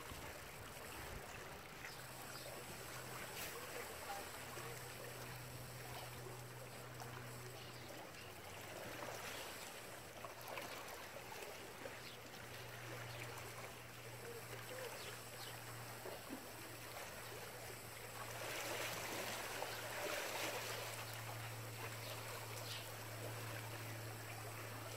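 Water rushing and lapping along a dam's concrete piers, an even hiss, with a steady low hum underneath.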